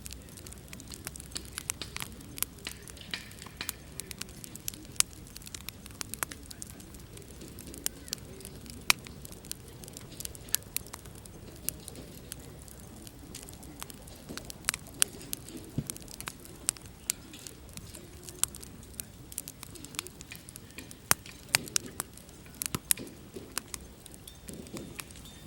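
Wood fire burning in a Snow Peak Takibi-dai S fire pit, crackling with frequent sharp, irregular pops over a low steady hiss of the flames.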